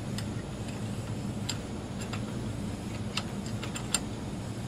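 Small metal vise being screwed shut by hand, giving a few light, irregular clicks as its screw handle turns, over a steady low hum.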